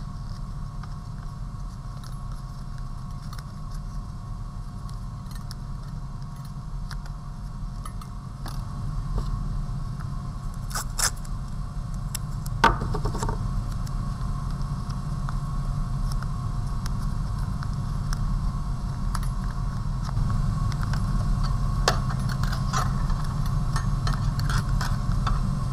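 Handling noise from a small wire-armature figure wrapped in newspaper and masking tape: scattered scrapes, rustles and light clinks of the wire, with a couple of sharper knocks near the middle. A steady low hum sits underneath throughout.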